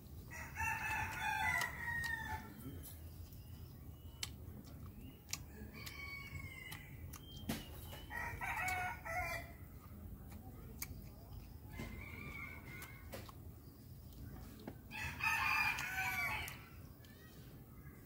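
Rooster crowing repeatedly: about five calls of a second or two each, the loudest near the start and near the end, with fainter ones between.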